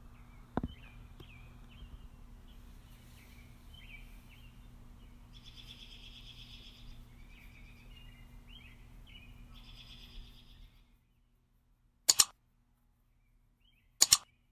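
Faint birdsong chirping over a low steady hum. The hum drops out about eleven seconds in and is followed by two sharp, doubled click sound effects about two seconds apart, from an on-screen like-and-share button animation.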